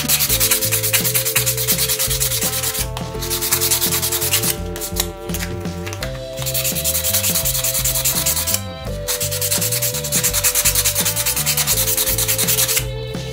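Fine sandpaper rubbed rapidly back and forth by hand over the hard lacquer coat of a wooden fishing lure. The rubbing comes in several long bouts, with brief pauses about three seconds in, midway, and near the end.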